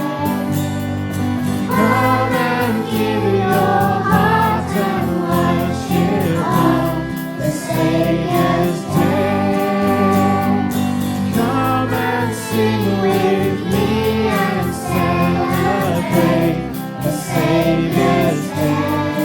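Recorded choir singing with instrumental backing and a steady beat.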